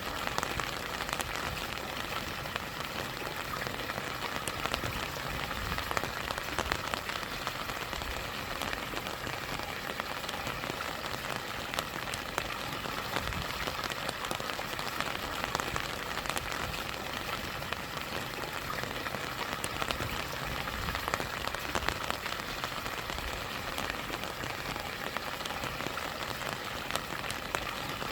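Steady rain falling over a rushing stream and a small waterfall: an even, unbroken wash of water noise with many light, scattered drop ticks.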